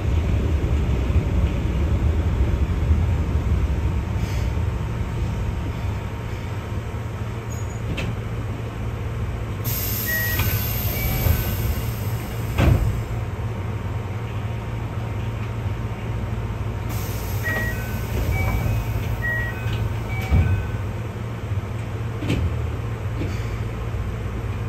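Keihan 600-series tram running along the line: a steady low rumble with occasional sharp clacks, the loudest about halfway. Two short runs of high beeps alternating in pitch come about 10 s and 18 s in, and a high hiss sounds for several seconds in the middle.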